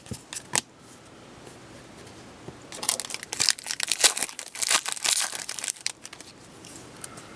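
Crinkling and rustling of plastic or foil packaging as trading cards are handled, with a few sharp clicks at the start and a dense run of crackling in the middle.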